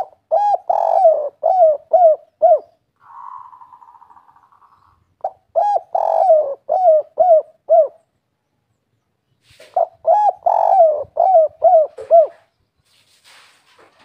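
Spotted dove (tekukur, 'kuk 3' song type) cooing: three song phrases of several low coos each, a few seconds apart. A short buzzing sound comes between the first two phrases.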